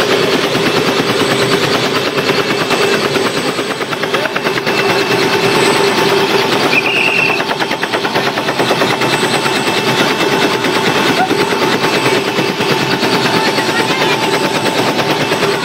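Helicopter running close by: the rapid, steady chop of its rotor blades over a steady engine hum.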